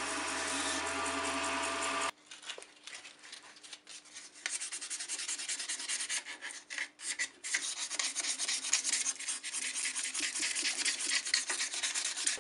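Wood lathe motor running with a steady hum, cut off abruptly about two seconds in. Then sandpaper is held by hand against the spinning plum-wood workpiece: a rough rubbing hiss, broken at first and steady from about halfway on.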